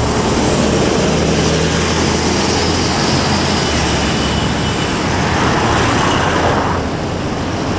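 A coach bus engine running as the bus pulls away and drives off, over steady road traffic noise. A rushing noise swells about five seconds in and fades shortly before the end.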